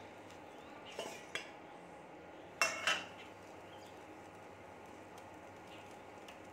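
A steel plate used as a lid is lifted off a stainless steel saucepan and set down on a stone counter. There are light metal clinks about a second in, then a loud ringing clatter of steel near the middle.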